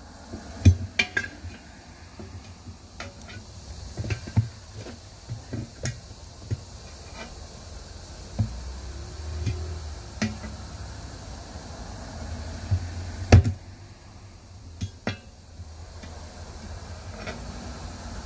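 Steel tire irons clanking and scraping against a 19.5-inch steel truck wheel as the tire bead is pried over the rim by hand: irregular metal clinks and knocks, with one of the loudest about a second in and the sharpest about two-thirds of the way through.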